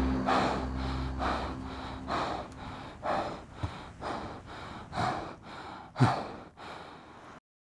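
A man breathing hard and fast, about two breaths a second, with a sharper gasp about three and a half seconds in and another about six seconds in. The breathing cuts off suddenly just before the end.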